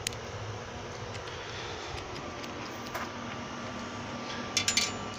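A single sharp snip of bonsai pruning cutters taking off an elm shoot, right at the start, over steady background hiss. Near the end comes a quick cluster of louder clicks.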